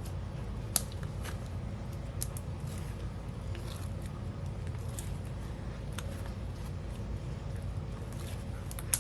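Hands squeezing and kneading slime mixed with sprinkles: soft squishing with scattered small clicks and crackles, over a steady low background rumble.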